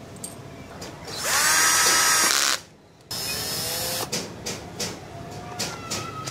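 Skil electric drill-driver driving the screws of a Honda CD-70 left crankcase cover in short runs. About a second in comes a loud whine that rises in pitch and stops sharply, then a quieter run, a few clicks, and a brief whir near the end.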